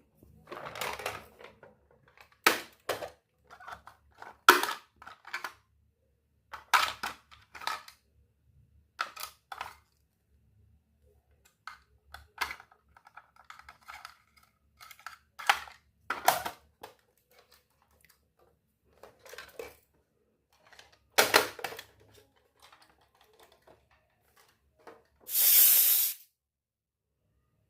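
Miniature steel toy kitchenware being unpacked and handled: scattered light clinks, taps and rustles of small metal pieces and packaging, with a louder hissing rustle lasting about a second near the end.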